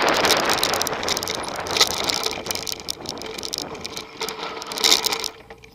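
Wind rushing over the camera microphone and a Cube LTD Race mountain bike rattling over grass and dirt, with a couple of sharp knocks from bumps. The noise fades as the bike slows and drops away about five seconds in.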